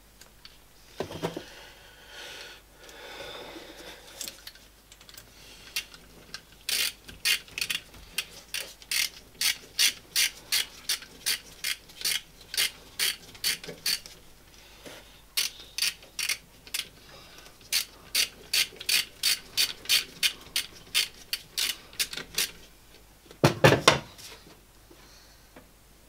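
Ratchet spanner clicking in a steady run, about two to three clicks a second with short pauses, as a fastener is worked on the heater fitting. A couple of heavy knocks follow near the end.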